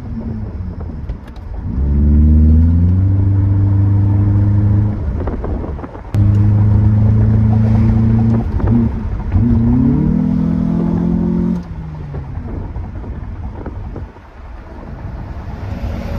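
Honda Accord's K24 four-cylinder heard from inside the cabin, pulling hard under throttle twice with loud intake and exhaust sound. Each pull starts with a stepped rise in pitch, holds, then cuts off sharply as the throttle is lifted, dropping back to quieter road noise.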